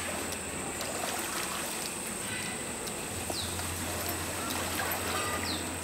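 River water lapping and trickling around pygmy elephants bathing in it, under a steady high-pitched whine and faint voices. Two short falling chirps sound, one a little past the middle and one near the end.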